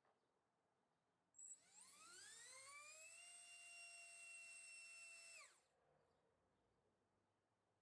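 Small 1407-size brushless FPV racing motor (XNOVA 3500KV) spinning a four-blade 3-inch propeller on a thrust stand. It gives a high whine that rises in pitch as it spools up, holds steady at full throttle for about two seconds at around 41,000 RPM, then falls off sharply as the throttle is cut.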